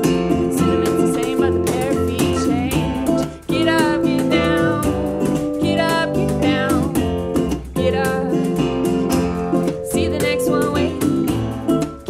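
Small acoustic band playing live: a woman singing over strummed acoustic guitar, upright bass and vibraphone.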